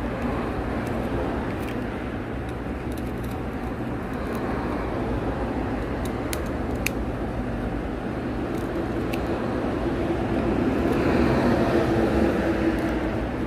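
Steady low rumble of background noise with a few faint sharp clicks; a droning hum swells louder about ten seconds in and fades near the end.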